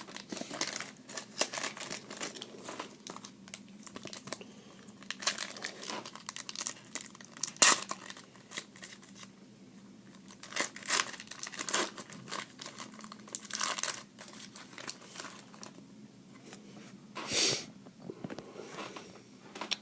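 Foil wrappers of 2011 Upper Deck College Legends card packs crinkling and tearing open, with trading cards handled and slid against each other. There are repeated short rustles throughout and a longer tearing rustle about 17 seconds in.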